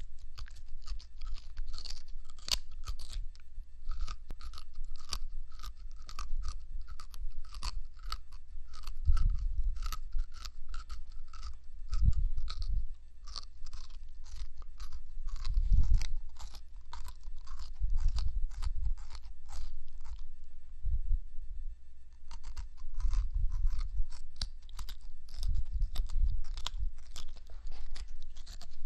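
An eastern lubber grasshopper chewing a leaf, its mandibles snipping off pieces in a rapid run of crisp clicks and crunches, several each second, with a few heavier low thumps now and then.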